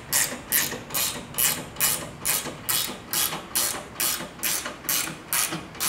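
A 9/16 ratcheting wrench clicking in quick back-and-forth strokes, about two a second, as a rail-clamp bolt is run up snug against the F-channel.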